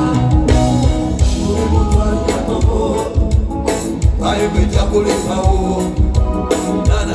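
Live band music with a steady bass and drum beat and singing.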